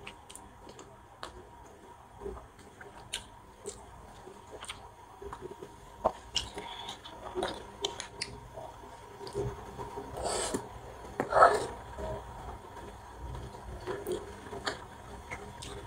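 Chewing of steamed veg momo, with wet mouth sounds and scattered light clicks and scrapes of a metal fork against the glass bowl of momo achar; two louder bursts come about two-thirds of the way through.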